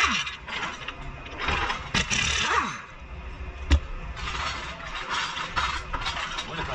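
Pneumatic impact wrench running in short bursts on a bolt, its whine falling as it spins down after each burst. A sharp metallic knock follows, then a dense mechanical rattle.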